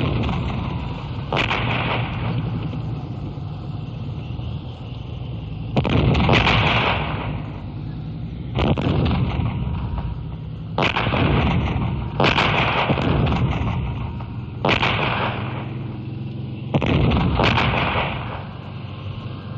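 War sound effect of tank cannon fire: a steady low engine rumble under about eight heavy gun blasts at uneven intervals, each ringing out for about a second. The blast just before the six-second mark is the loudest.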